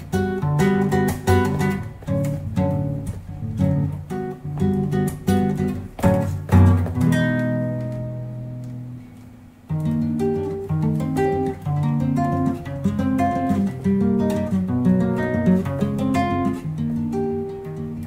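Acoustic guitar playing plucked and strummed chords in a steady rhythm. About six and a half seconds in, one loud chord rings out and fades for about three seconds, then the playing starts again.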